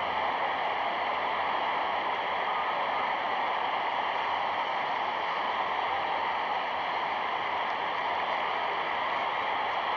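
Steady, even rushing noise with no distinct events: the hiss and surface noise of an old newsreel soundtrack.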